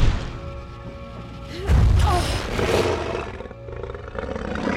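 Dramatic film score with a creature sound effect of the dragon roaring: a loud hit right at the start, then a second loud roar with short rising and falling cries about two seconds in.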